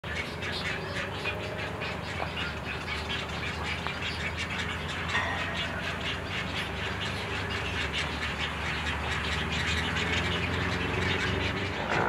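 Chorus of many overlapping short calls from a breeding rookery of nesting great egrets and their nearly fledged young, going on without a break.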